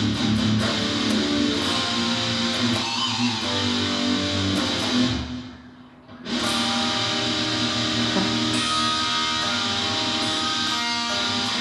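Guitar music: a guitar strummed through a heavy song, which breaks off briefly about five seconds in and then comes back in.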